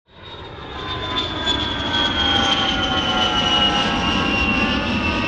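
Boeing 747-400 jet engines running: a loud rush with a high whine that slowly falls in pitch, fading in over the first second.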